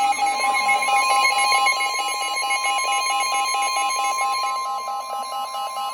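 Emergency broadcast alert tone: a steady single-pitch tone near 1 kHz, like the warning alarm tone that NOAA Weather Radio sends ahead of a warning, with a fast-pulsing beep a little lower in pitch layered over it.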